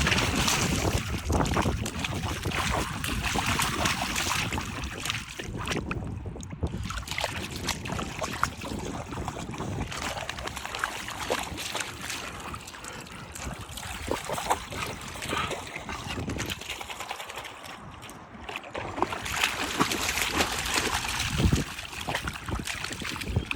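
Wind buffeting the microphone in a low, uneven rumble, with irregular small clicks and rustles from walking along a trail.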